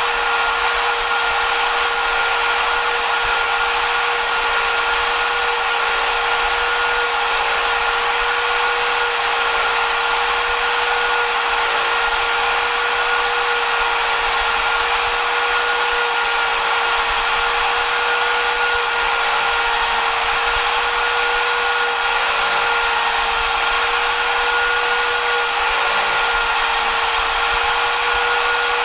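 DeWalt DW660 cutout tool running at full speed on a Mostly Printed CNC, its 1/8-inch single-flute upcut end mill milling a deep pocket in pine. The sound is a steady high whine over a rough cutting noise, with the cut just starting to chatter.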